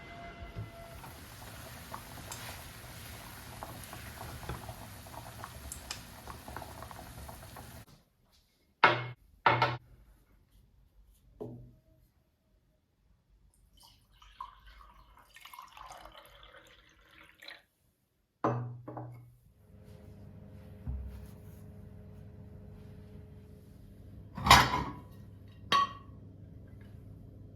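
Kitchen work sounds: a steady pour of liquid, then sharp clinks of dishes and utensils set down, with a steady appliance hum in the later part.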